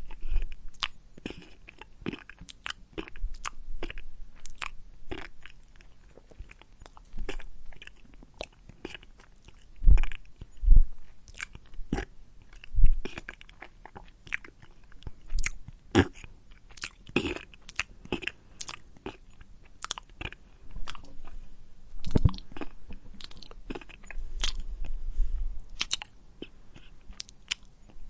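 An animal eating: irregular crunching bites and chewing, a busy run of sharp clicks and crunches with a few heavier low thuds about ten to thirteen seconds in.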